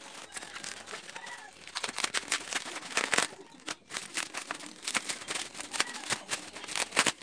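Packaging of a boxed toy rifle being handled and opened: a dense, irregular run of plastic crinkling and rustling with sharp clicks, starting about two seconds in.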